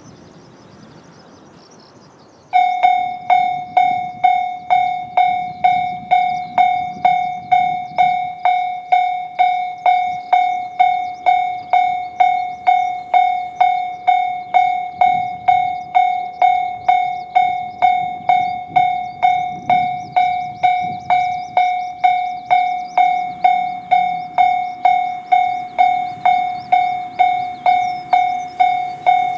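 A level crossing's electronic warning bell (the JR standard crossing sound) cuts in about two and a half seconds in. It rings in even, sharp strikes a little under twice a second: the crossing is warning of an approaching train.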